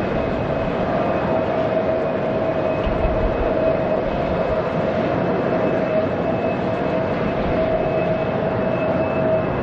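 Jet airliner engines running: a steady roar with a constant high whine.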